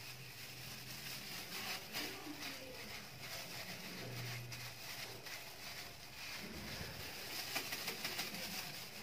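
Water in a toilet bowl swishing and lapping as a gloved hand stirs it, with irregular small splashes that grow busier near the end.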